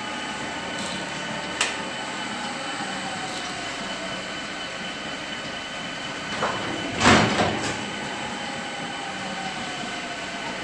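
AMS Galaxy robotic milking unit running through its teat-cleaning stage: a steady machine hum with a faint high whine. There is a click about a second and a half in, and a short loud rush of noise about seven seconds in.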